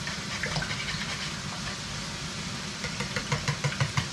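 Wire whisk beating eggs in a bowl, the strokes turning quicker and louder about three seconds in, at roughly five a second. Diced bacon is frying in a pan over a steady low hum.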